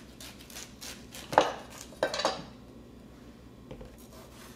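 Kitchen knife cutting a piece from a watermelon on a wooden cutting board: a quick run of short cutting strokes, then two louder knocks about a second and a half and two seconds in.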